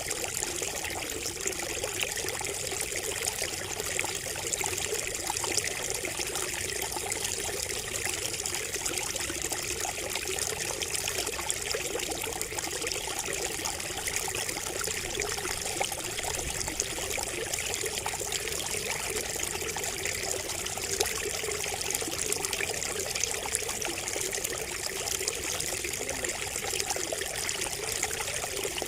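Water trickling and splashing steadily from a bamboo spout, a continuous even patter of small splashes.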